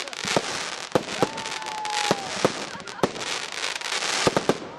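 Fireworks display: aerial shells bursting with sharp bangs, several in quick succession, over continuous crackling from glittering stars. A steady, slightly falling whistle sounds for about a second, a little after the start.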